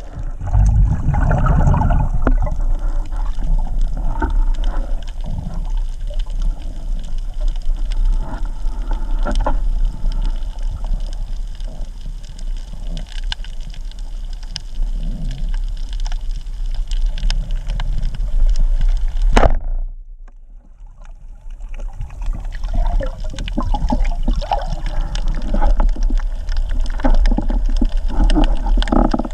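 Water sloshing and bubbling around an underwater camera, with scattered clicks. About twenty seconds in, a sharp click is followed by a couple of quieter seconds, then the water noise returns.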